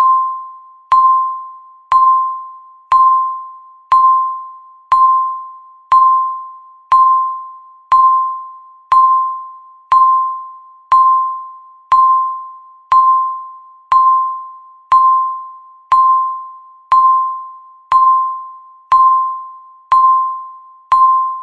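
Countdown timer beeping once a second: the same high electronic tone each time, struck sharply and fading away before the next beep.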